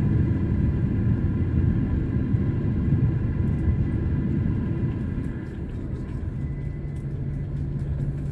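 Cabin noise of a jet airliner on its landing roll: a loud, steady low rumble that eases about five seconds in as the plane slows, after which a steady low hum comes in.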